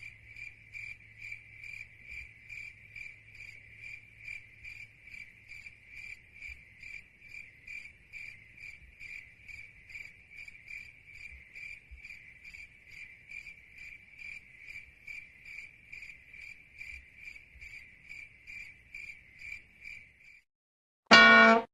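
Cricket chirping steadily, a high chirp repeated about two to three times a second, stopping about a second before the end. Right at the end a loud, pitched sound abruptly cuts in.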